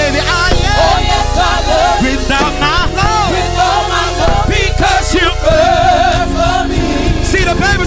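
Gospel song: a lead voice singing gliding vocal runs with a choir over a band's steady low accompaniment.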